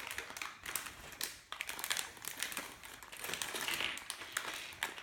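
Small plastic Lego pieces and their packaging being handled: scattered light clicks and taps with some soft crinkling.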